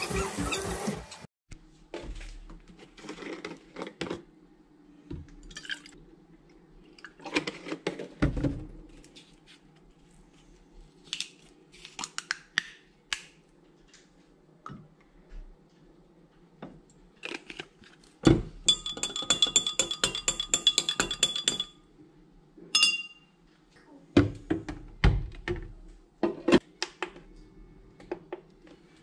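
Kitchen handling sounds: dishes and a sponge knocking and scraping in a stainless steel sink, then a long metal spoon stirring milk in a glass, clinking rapidly and ringing against the glass for a few seconds about two-thirds of the way through. A single ringing clink follows, then a few knocks as things are set down on the counter.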